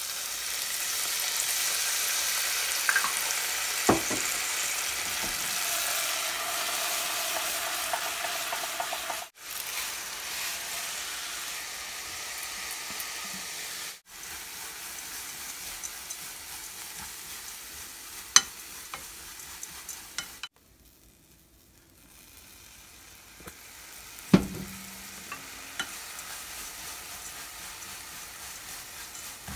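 Garlic, oil and soy sauce sizzling in a saucepan, then small dried anchovies sizzling as they are stir-fried with a wooden spatula. The sizzle is loudest over the first third and fainter afterwards, with a few sharp taps of the spatula against the pan.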